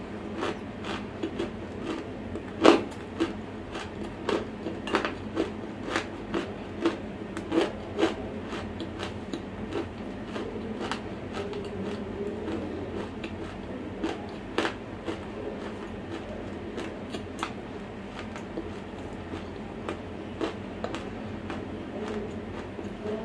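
Dry semi-roasted clay crunching and crackling as it is bitten and chewed right at the microphone: many sharp crunches, frequent in the first half and sparser later.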